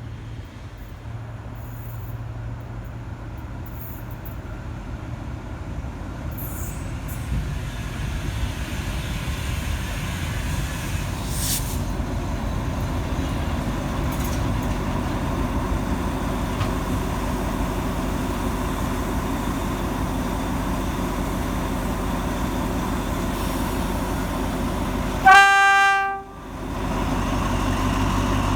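Alsthom AHK diesel-electric locomotive running with a steady low rumble that grows louder over the first several seconds. About 25 seconds in it gives one short horn blast of about a second, the loudest sound here, and then the engine keeps running.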